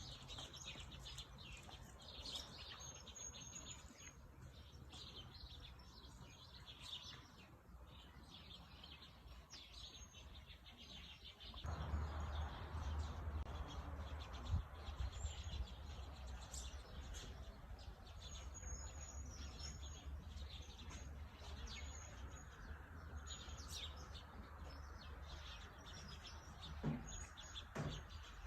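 Small birds chirping and singing, many short high calls overlapping throughout. A steady low rumble with a hiss of background noise comes in suddenly about halfway through and stays.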